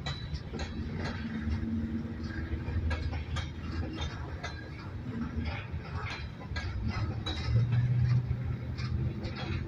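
Empty rock train of open-top hopper cars rolling past: a steady low rumble with frequent clicks and clanks from wheels and couplers, swelling louder near the end.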